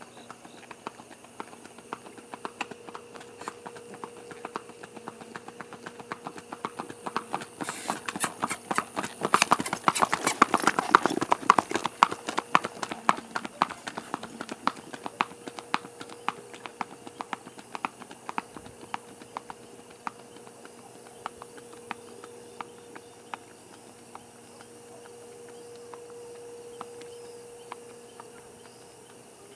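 Hoofbeats of a Rocky Mountain Horse mare gaiting on asphalt: a quick, even clip-clop that grows louder as she comes up, is loudest about ten seconds in as she passes close by, then fades as she moves away.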